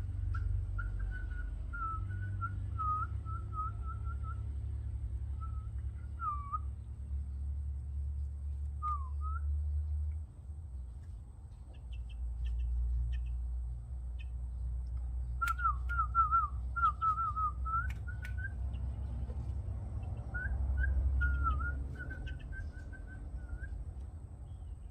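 Quick warbling whistles in four runs of a few seconds each, over a steady low rumble, with two sharp clicks in the middle.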